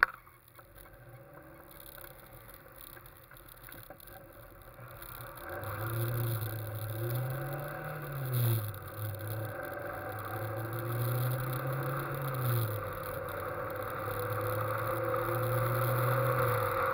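A click at the very start, then a Westfield kit sports car's engine heard from on board. It runs quietly at first, then pulls harder: the note climbs and drops back three times as the car accelerates through the gears, with wind noise growing as speed builds.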